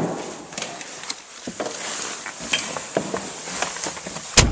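Handling noise in a skid steer cab: scattered small clicks, knocks and rustles, with one loud sharp knock near the end. No engine is running.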